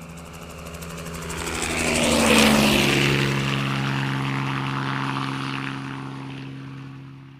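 Helicopter flying past: it grows louder to a peak about two and a half seconds in, its engine and rotor pitch drops as it passes, and it slowly fades away.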